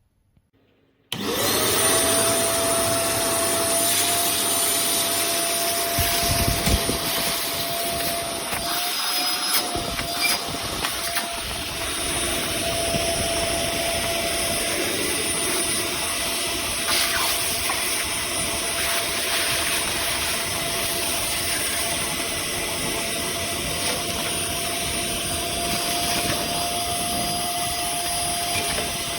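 Ash vacuum cleaner switching on about a second in, then running steadily: an even rush of air with a steady whine from the motor, and a couple of low bumps around six seconds in.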